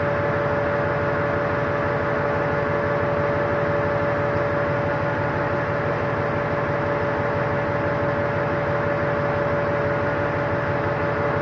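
Steady drone of a ship's running machinery: a constant hum with a clear steady tone over an even rushing noise.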